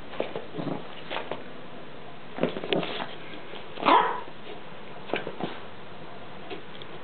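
A chihuahua giving a scattering of short yips and barks, the loudest about four seconds in.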